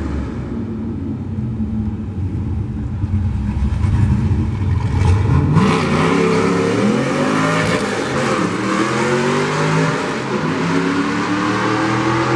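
Nissan drag car's engine running loud, first a low rumble, then revving hard from about halfway. Its pitch climbs, dips briefly once and climbs again as the car accelerates.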